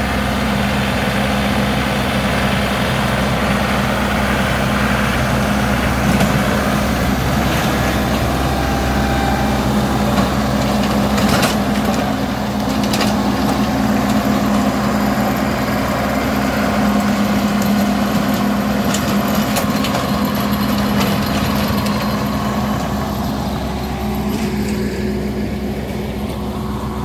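John Deere compact tractor's diesel engine running steadily as it works the ground with a rear-mounted rotary tiller. A couple of sharp clicks come about halfway through.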